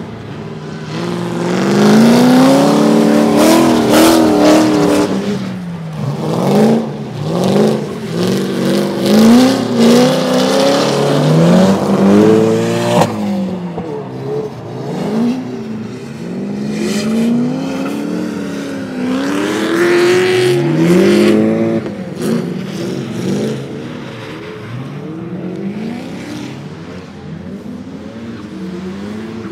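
Drift car engines revving hard through a slide, the pitch climbing and dropping again and again as the throttle is worked, loudest as the cars pass close. The engine noise peaks twice, as one car and then another goes by.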